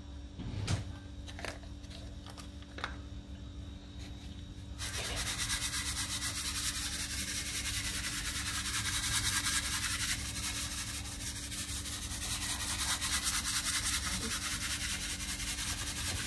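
Sesame seeds being sprinkled over a bowl of stir-fried chicken and vegetables: a steady fine rustling hiss that starts about five seconds in and keeps on to the end, with a few light clicks before it.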